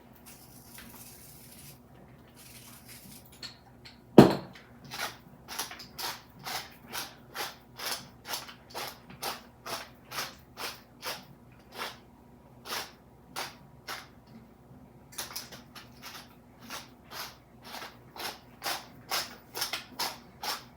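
Hand-turned salt or pepper grinder being twisted over the chicken wings: a steady run of short grinding strokes, about two a second. A single loud knock comes just before the grinding starts.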